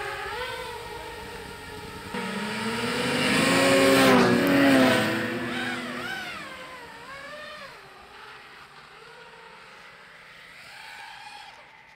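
FPV drone motors and snowmobile engines passing, their pitch rising and falling with throttle. The sound is loudest about four seconds in, then fades away.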